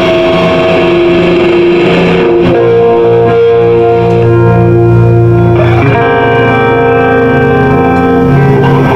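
Live extreme progressive metal band playing a slow passage: electric guitar with effects holds ringing notes and chords, moving to a new chord about every two to three seconds.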